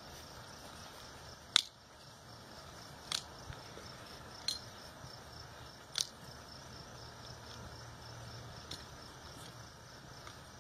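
Hoof nippers cutting the overgrown wall of a horse's hind hoof: a series of sharp snaps, roughly one every second and a half, the loudest about a second and a half in. Faint insect chirring goes on underneath.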